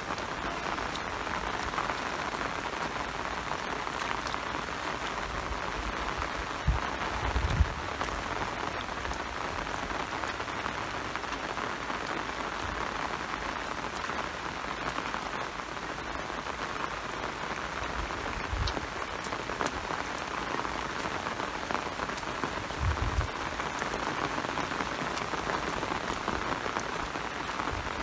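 Steady rain falling on a wet, muddy field: an even hiss. A few dull low thumps stand out, the loudest about seven seconds in.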